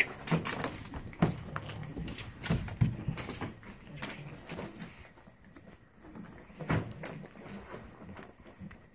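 Pug puppies moving about in a towel-lined plastic paddling pool: irregular scuffles, taps and small knocks, with a sharp knock right at the start.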